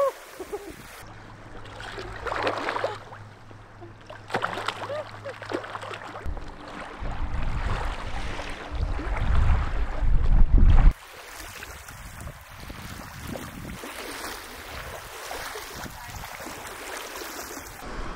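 Lake water lapping and splashing around swimmers, with wind on the microphone, in several short clips joined by abrupt cuts. The loudest stretch, about seven to eleven seconds in, is a low wind rumble.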